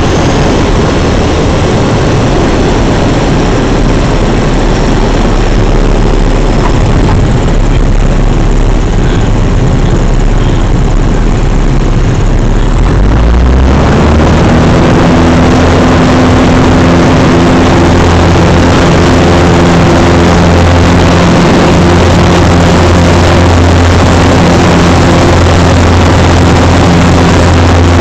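Piper Cherokee's engine and propeller heard from inside the cabin, running low at reduced power on the landing roll. About halfway through the throttle is opened to full power for takeoff, and it settles into a loud, steady drone.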